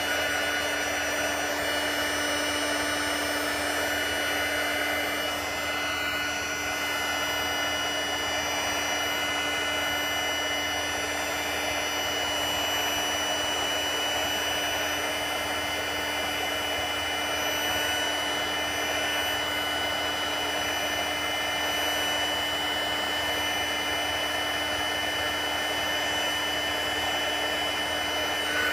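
Stampin' Up! craft heat gun blowing steadily with a constant motor hum, drying wet watercolour ink on paper.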